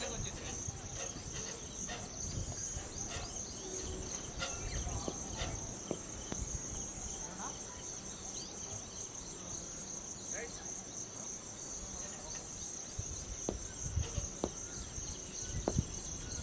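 Insects trilling steadily in a continuous high-pitched drone, over a low rumble with a few faint scattered clicks.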